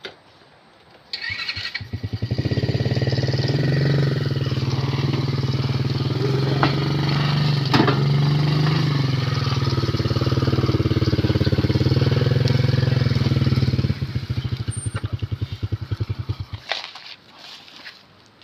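Motorised cargo tricycle's small engine starting about a second in, running and revving as the tricycle pulls away, then dropping to slow, uneven putts and cutting out about two seconds before the end.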